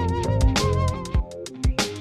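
Background music with a drum beat and a wavering lead melody; the bass drops out about a second in.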